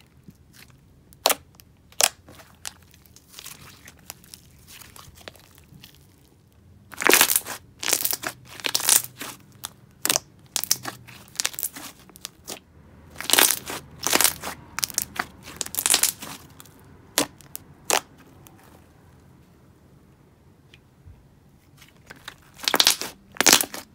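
Thick, glossy slime being poked, pressed and stretched by hand, making sharp sticky clicks and pops that come in bunches with quieter gaps between.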